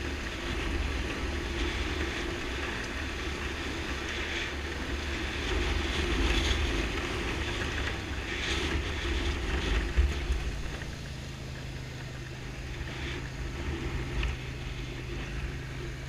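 ATV engine running as the quad rides over a rocky gravel trail, with wind buffeting the camera's microphone. There is a sharp jolt about ten seconds in, after which the engine settles to a steady lower hum.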